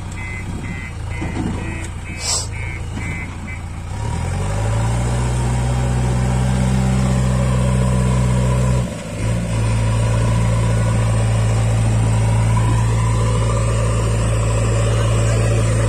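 JCB 3DX backhoe loader's reversing alarm beeping about twice a second, stopping about four seconds in as its diesel engine revs up. The engine then holds a steady, louder note while the machine drives through deep mud, dipping briefly once around the middle.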